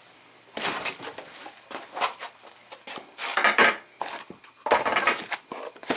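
Small metal parts and accessories clinking and rattling as they are handled and rummaged through, in several irregular bursts of clatter.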